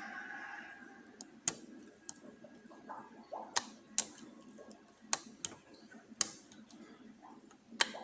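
Lock pick and tension wrench working inside an oval cylinder lock: irregular small clicks and ticks of metal on pins, with about eight sharper clicks spaced unevenly.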